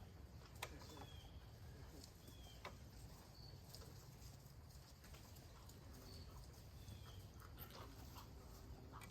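Near silence: a low steady hum with a few faint clicks and soft, short high chirps scattered through.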